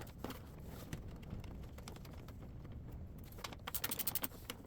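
A socket ratchet clicking rapidly, about ten clicks a second, for under a second near the end, over a low steady hum.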